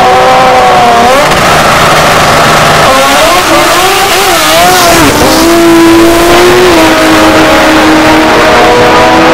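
Drag car engine, a first-generation Mazda RX-7, held at high revs on the start line, then launching hard down the strip: its pitch climbs and drops through the gear changes in the middle. A steady engine drone follows near the end.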